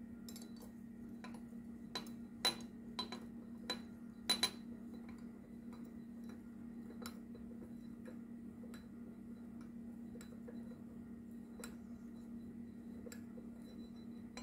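Small machined steel vise parts clinking and clicking against each other as they are test-fitted by hand: a scattering of sharp metallic taps, most of them about two to five seconds in, then a few more spread out. A steady low hum runs underneath.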